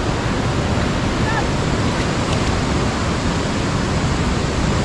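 Steady rush of wind on the microphone mixed with the wash of heavy surf breaking on the reef.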